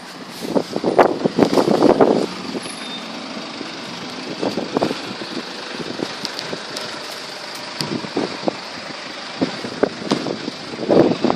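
Gale-force wind gusting and buffeting the microphone, with rough crackling swells in the first two seconds and again near the end.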